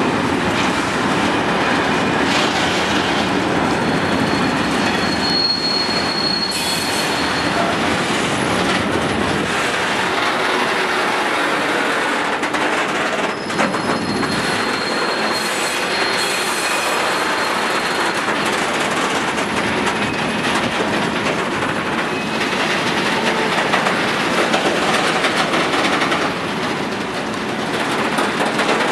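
Rake of covered hopper freight wagons rolling slowly past during shunting: a steady rumble and clatter of steel wheels on the rails, with faint wheel squeal now and then.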